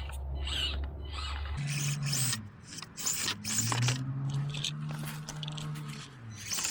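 Background music with held low notes that change pitch every couple of seconds, with scraping, clicking noises over it.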